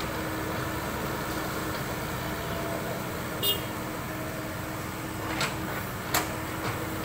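Compact crawler excavator's diesel engine running steadily under hydraulic load as the boom lifts a bucket of mud. A short ringing metallic clink comes about halfway through, and two sharp clicks near the end.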